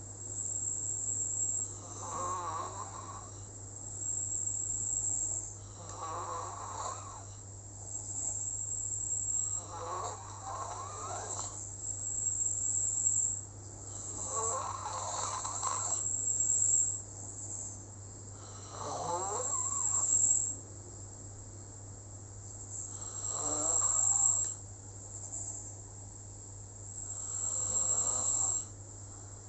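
Slow, regular snoring: about seven breaths, one roughly every four seconds, each a rough rattle. A steady high trill and a low hum run underneath.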